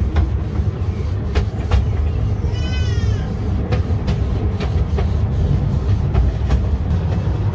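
Low rumble of a 10¼-inch-gauge miniature-railway passenger carriage rolling slowly into a station, with irregular clicks from the wheels and track. A short squeal with a bending pitch comes about three seconds in.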